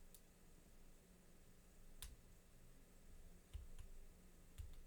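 A few faint, sharp clicks over near silence: lock picks and the American Lock 1100 padlock being worked and handled. The clearest click comes about two seconds in, with a small cluster near the end.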